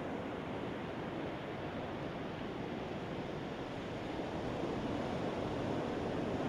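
Ocean surf washing steadily, swelling slightly near the end.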